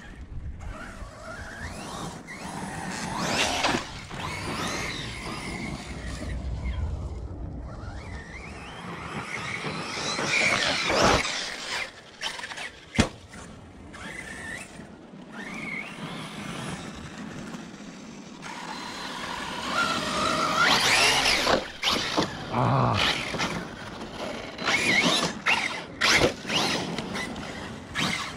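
Electric motor of a 6S-powered ARRMA 1/10 4WD RC truck whining, its pitch rising and falling again and again as it is throttled hard. A few sharp knocks cut through, the strongest a little after ten seconds and another about two seconds later.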